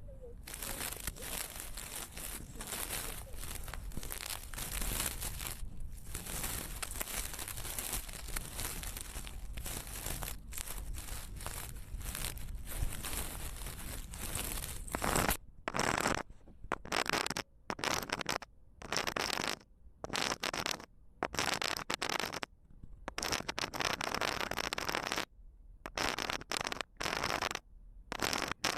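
Flowing water splashing and rushing steadily; about halfway through it starts cutting in and out, with abrupt short silences between stretches of the water sound.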